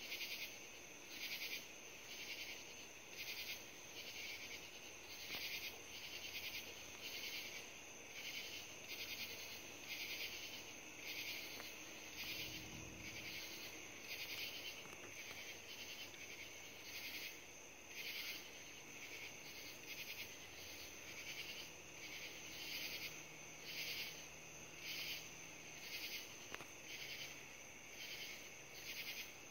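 Chorus of night insects chirping, swelling and fading about once a second. A short low rumble comes about twelve seconds in.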